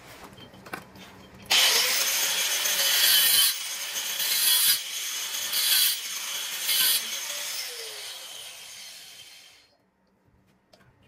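Handheld angle grinder with a cutting disc cutting through a plastic drain pipe. It starts suddenly about a second and a half in, runs with the level surging several times as the disc bites, then winds down and stops near the end.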